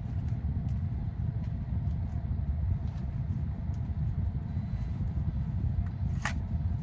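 Steady low rumble in the background, with faint light clicks of trading cards being handled and one brief sharp scrape or rustle about six seconds in.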